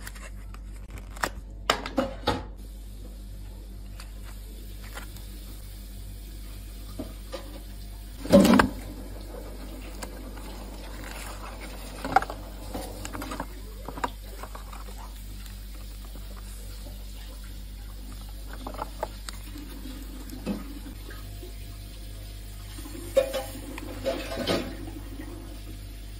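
Kitchen handling sounds as a cardboard box of jelly powder is handled and opened and the powder is poured into a glass bowl: scattered knocks, clicks and rustles, the loudest about eight and a half seconds in, over a steady low hum.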